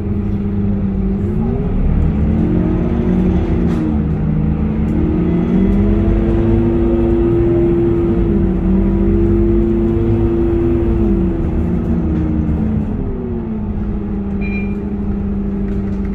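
Scania K230UB bus's five-cylinder diesel heard from inside the passenger cabin: its pitch climbs as the bus pulls away, steps through gear changes, holds steady through the middle, then falls back a few seconds before the end.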